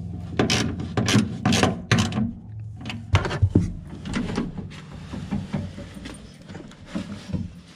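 Irregular knocks, clacks and rubbing from hands and tools working inside a Honda Civic's door, on the window regulator's bolts to the glass. The sharpest knocks come in the first half, followed by softer scraping.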